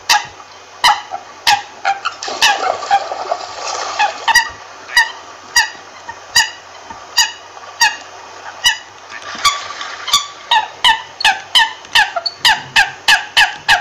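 American coot calling: a long series of short, repeated notes, about one and a half a second, quickening to about three a second near the end.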